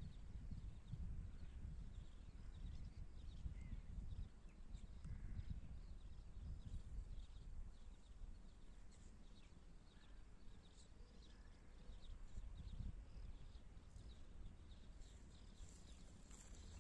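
Wind rumbling on the microphone, uneven and gusting, with many faint short high chirps scattered through.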